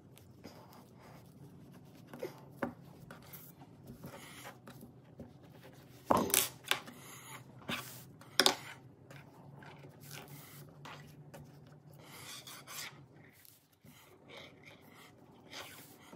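Hands moving and rearranging thick twisted rope pieces on a tabletop: irregular rubbing and scraping, with a few sharp knocks, the loudest about six and eight seconds in.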